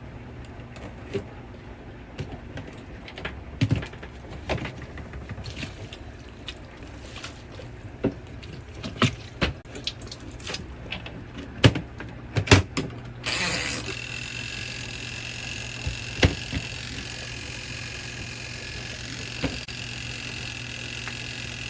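Small portable twin-tub washing machine running, its motor giving a steady low hum with scattered knocks and clunks. From about 13 seconds in, a steady rush of water joins it.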